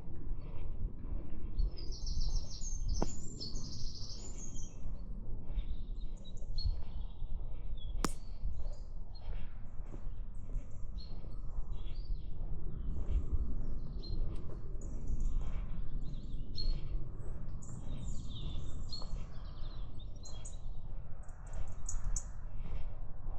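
Woodland birdsong: several small birds giving many short, high, thin calls and song phrases, over a steady low rumble.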